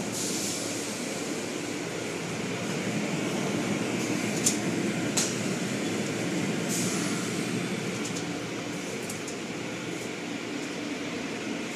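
Automatic car wash machinery running behind glass: a steady mechanical rumble of the spinning brushes and cloth strips, with water spray hissing and surging now and then. Two sharp clicks about half a second apart come near the middle.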